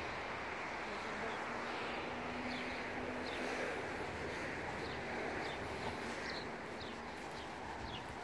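Outdoor ambience: a steady background rush with small birds chirping in short calls again and again. A faint steady hum, such as a passing engine, comes in for a couple of seconds about a second in.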